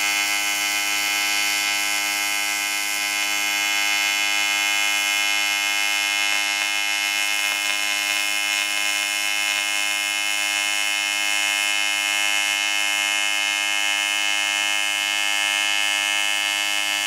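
AC TIG welding arc from a Parweld XTM 221Di, set to 100 Hz AC frequency, welding 6 mm aluminium plate: a loud, steady, even-pitched buzz at the AC frequency.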